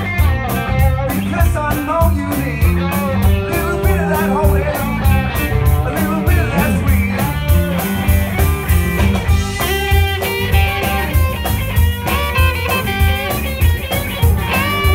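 Live blues-rock band playing an instrumental passage: electric guitars, including a Telecaster-style guitar, over bass and drums, with an even cymbal beat throughout.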